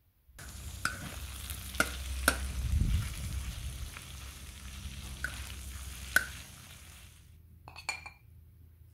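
Meatballs and pieces of sheep liver sizzling on a large flat steel griddle as a spatula stirs them, with several sharp clicks along the way. The sizzling stops about seven seconds in, followed by a short clink.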